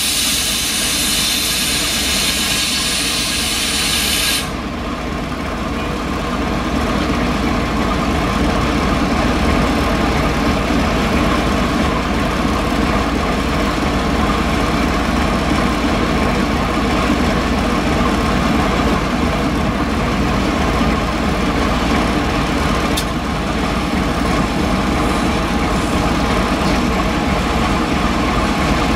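DB Class V 65 diesel locomotive's engine idling steadily. A loud hiss of released air runs over it at the start and cuts off sharply about four seconds in.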